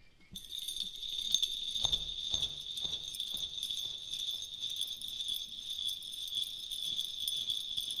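Bells jingling steadily in a bright, shimmering jingle that starts suddenly just after the beginning, like a sleigh-bell music track.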